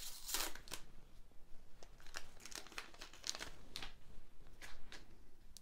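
Foil wrapper of a trading-card booster pack crinkling and tearing in a series of irregular crackles as the pack is opened by hand.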